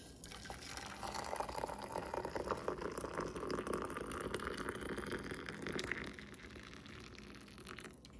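Water poured in a steady stream from an electric kettle into a silver metal teapot over dried oregano, filling the pot. The pour is strongest for the first several seconds and thins out near the end.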